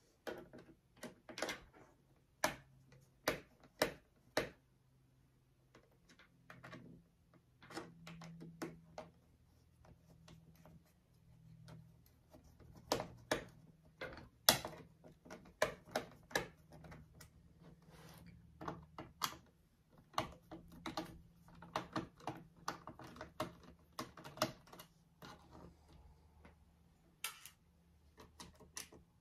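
Irregular small clicks and taps of a precision screwdriver being worked on the bottom-panel screws of a Dell G16 laptop, the tip seating in and turning the screws, several clicks a second in some stretches and sparse in others.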